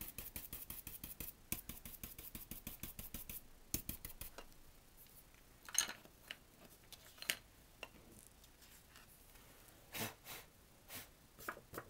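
Round ink-blending brush scrubbing ink onto cardstock through a stencil in quick scratchy strokes, about ten a second, for the first three seconds or so; after that, scattered light taps and clicks of paper and tools being handled.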